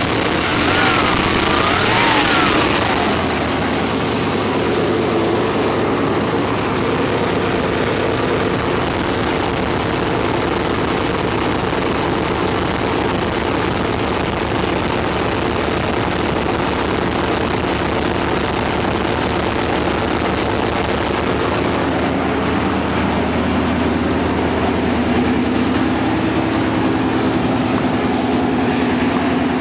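Chevrolet 350 small-block V8 with throttle body injection running steadily. In the first couple of seconds a whine dips and rises twice as the throttle is worked by hand at the linkage.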